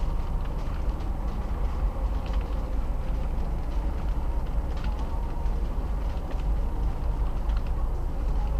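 Steady low rumble of a stopped car's engine idling, heard inside the cabin.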